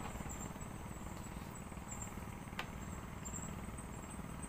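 Night insects chirring in a steady high-pitched band over a low, even rumble, with a single sharp click a little past halfway.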